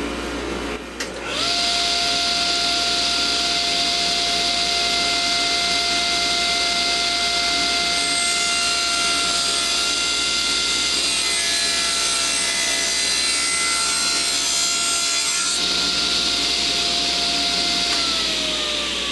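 Table saw with its blade tilted for a bevel: the motor switches on about a second in and comes up to speed, the blade rips along the board with a steady whine and loud cutting noise, then near the end the saw is switched off and the blade winds down in falling pitch.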